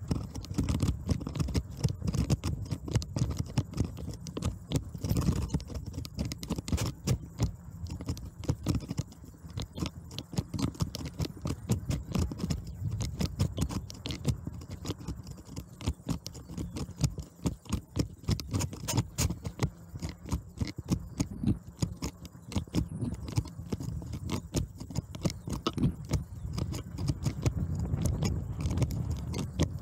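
Bicycle rolling over a bumpy dirt track: tyres crunching on the dirt and the bike rattling with a dense, irregular run of clicks over a low rumble.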